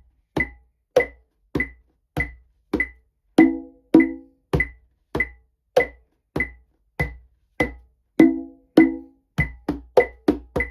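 Single conga playing a tumbao rhythm at 100 BPM over a metronome click on every beat, with some strokes ringing out as open tones. About nine seconds in, the strokes double to eighth notes.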